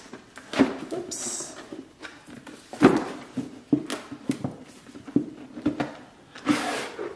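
A stiff cardboard gift box being handled and turned over in the hands: irregular knocks and taps, the loudest about three seconds in, and a longer scrape of cardboard near the end.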